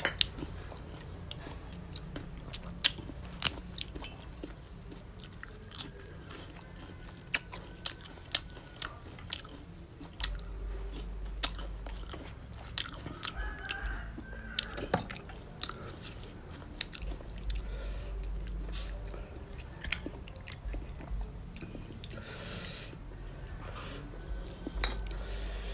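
Close-up chewing of raw oyster meat: wet mouth sounds with many sharp smacks and clicks, uneven in timing.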